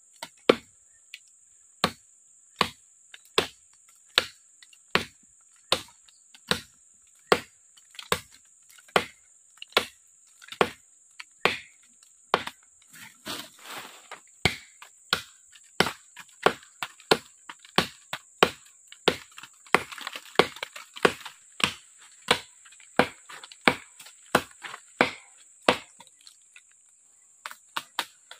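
A short, heavy parang (machete) chopping into the trunk of a woody weed tree: sharp wooden chops coming steadily, a little over one a second.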